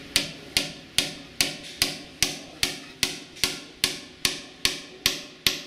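A hammer driving nails through a metal fitting into a wooden beam: a steady run of sharp strikes, about two and a half a second, each ringing briefly.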